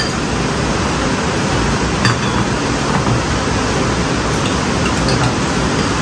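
Spoons clinking a few times against ceramic bowls and plates while eating, over a loud steady hiss.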